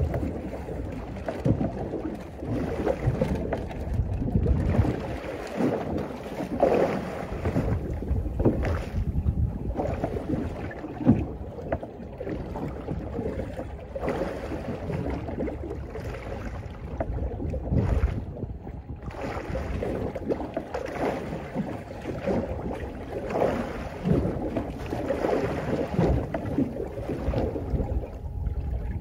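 Wind buffeting the microphone and water lapping against the hull of a small boat on open sea, an uneven rushing that rises and falls.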